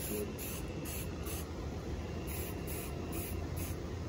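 Aerosol spray can of paint hissing in short repeated bursts as the nozzle is pressed and released.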